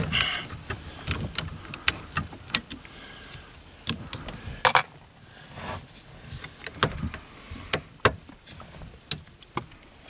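Irregular small clicks and taps of a Torx driver and screws on the steering column's ignition switch housing as the screws are backed out, with a brief louder clatter about halfway through.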